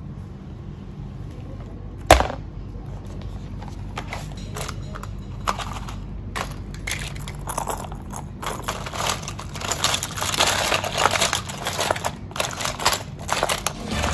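A sharp knock about two seconds in, then irregular crunching and crackling that grows busier and louder toward the end.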